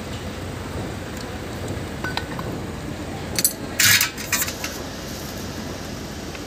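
Metal starter motor parts clinking and clattering on a hard surface while the starter is handled and set down for reassembly: a few light clicks, then a short burst of metallic clatter a little past halfway.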